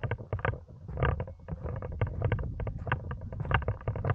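Wind buffeting the camera's microphones: a constant low rumble broken by rapid, irregular crackling gusts.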